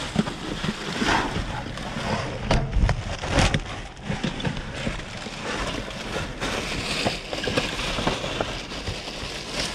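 Plastic trash bags being rummaged through by hand: rustling and crinkling with scattered sharp crackles, and a few low thumps about three seconds in.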